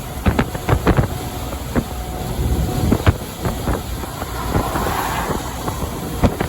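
Semi truck driving at highway speed: a steady low engine and road rumble with wind noise, broken by frequent sharp knocks and rattles.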